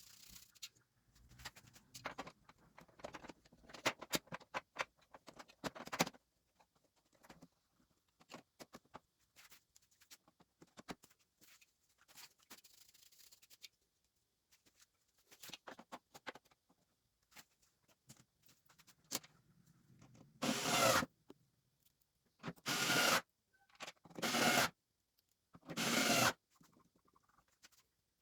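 Keyboard keys being scrubbed clean by hand: scattered light clicks and rubbing at first, then four firm rubbing strokes about a second and a half apart near the end.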